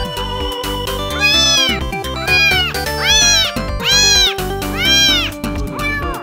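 A tiny Korean shorthair tabby kitten meowing five times in a row, about once a second, each call high-pitched and rising then falling, with a fainter sixth call near the end. Background music plays underneath.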